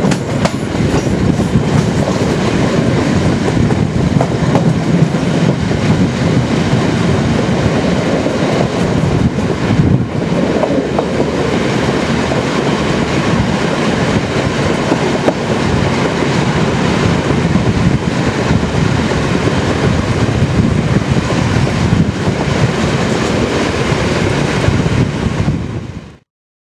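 Moving train hauled by the DSB MY 1101 NOHAB diesel-electric locomotive, heard from a coach window: steady rumble of the wheels on the track. It fades out near the end.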